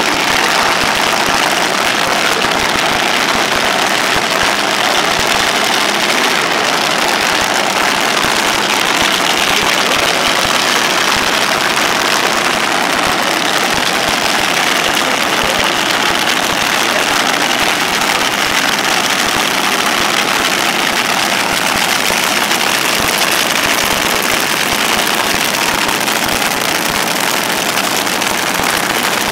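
Top fuel dragster engines running at idle, a loud, steady noise.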